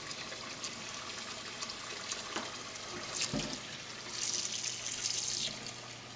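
Kitchen faucet running cold water into a pot of freshly drained cooked pasta shells in the sink to cool them: a steady splashing hiss that swells louder for about a second past the middle of the stretch, with a dull knock of the pot about halfway through.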